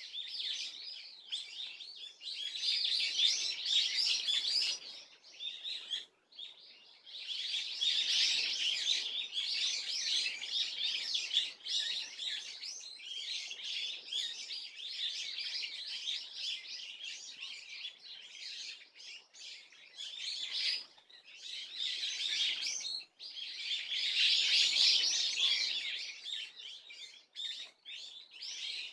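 A small songbird twittering in long, rapid, chattering bouts, broken briefly about six seconds in and again around twenty-three seconds. The uploader takes it for a swallow's song, with a question mark.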